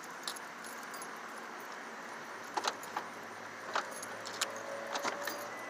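Keys jangling on a key ring as a car door is unlocked with the manual key and pulled open, with a few sharp clicks from the lock and door.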